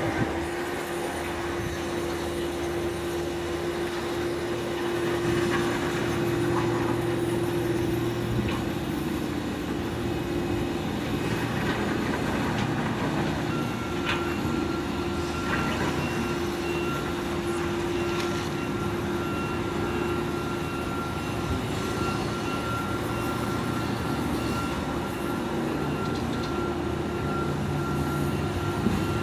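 Heavy diesel construction machinery, a single-drum road roller compactor and a hydraulic excavator, running steadily: an even engine drone with a constant whine over it. A fainter, higher whine joins about halfway through.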